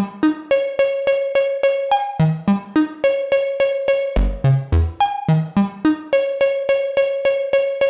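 Eurorack modular synthesizer sequenced by a Make Noise BRAINS and Pressure Points: short synth notes repeat on one pitch about four to five times a second, broken several times by quick runs of notes at other, mostly lower, pitches as one-shot sequences are fired off by touching the plates.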